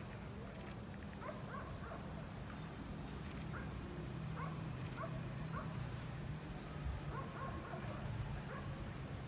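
Faint dog yips and short barks, scattered through, over a steady low hum.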